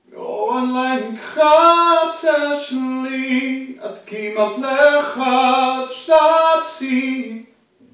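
A man singing unaccompanied in a high voice: a slow melody of held, stepped notes in about four phrases separated by short breaths.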